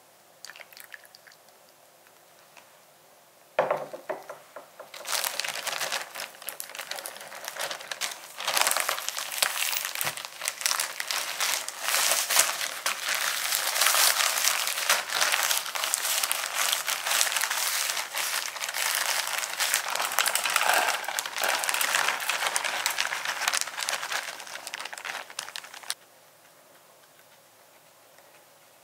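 Plastic zip-top bag crinkling and crackling as a hand kneads crushed cookie crumbs inside it. It starts sharply about four seconds in, becomes a dense continuous crinkle, and cuts off suddenly a few seconds before the end.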